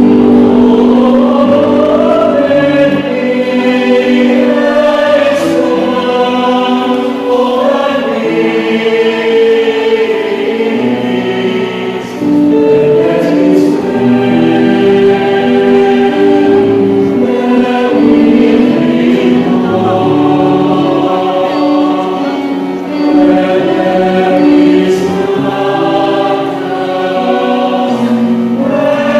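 Mixed choir singing a sacred song in several parts, holding sustained chords that change every second or two.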